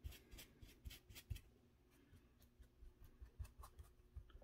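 Faint, irregular scratching taps of a paintbrush dry-brushing highlights over a textured clay surface, quickest in the first second or so and sparser after.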